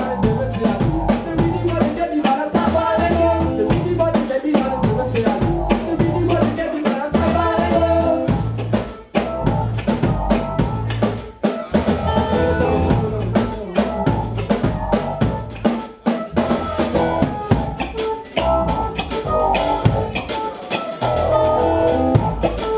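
Live band playing: a drum kit with rimshots, snare and bass drum over electric bass and guitar, with the music dropping away briefly a few times.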